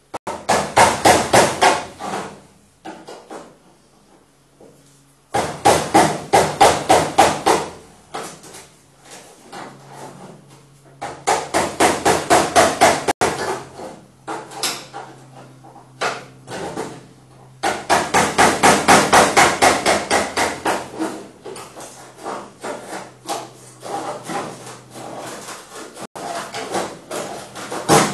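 A chisel is being driven into the rusty steel sheet metal of a car's rear quarter panel, tearing the panel away. It comes in four bursts of rapid, even metallic strikes, about seven a second, with quieter taps between the bursts.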